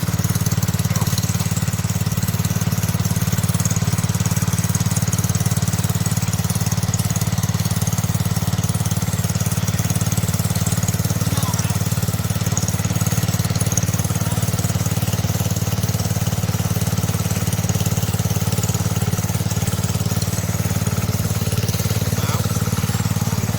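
Small garden tractor engine running steadily at a constant speed.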